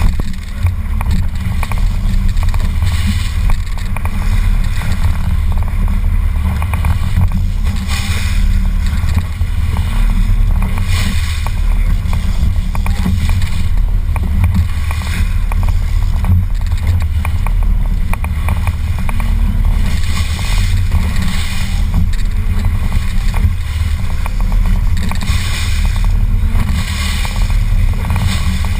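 A boat under way on open water: a steady low rumble, with the hiss of water and wind swelling and fading every second or two.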